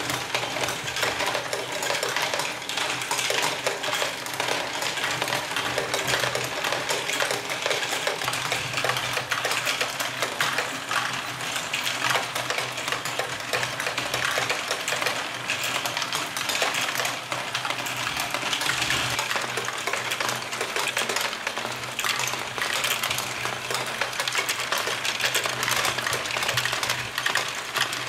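LEGO Great Ball Contraption modules running: small plastic balls clattering and rattling continuously through the LEGO mechanisms and plastic gears, over a steady hum of the LEGO motors.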